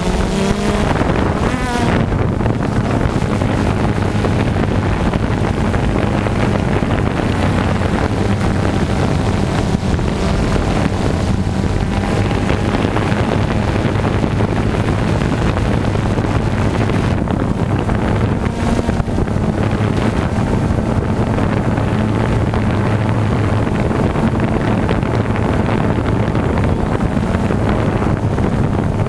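Multirotor drone's motors and propellers running in flight, heard from the camera mounted on the drone: a steady low hum under a constant rush of wind on the microphone.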